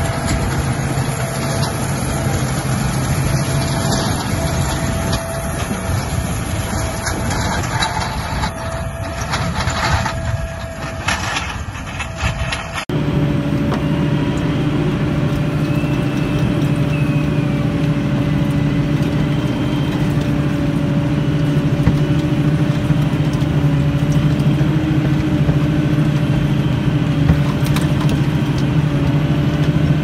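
A tractor and Massey Ferguson large square baler running as they pass. After an abrupt cut about 13 s in, the tractor's engine runs steadily, heard from inside the cab as it drives across the field.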